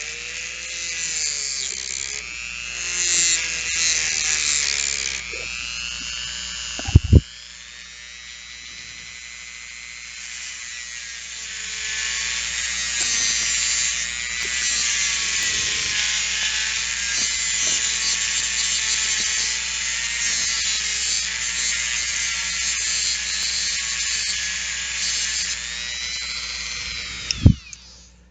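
Dremel rotary tool with an emery disc grinding down a small metal nut and bolt head: a high whine whose pitch wavers as the disc bites. It is quieter for a few seconds after a pair of sharp knocks about seven seconds in, then louder again, and it stops with another knock just before the end.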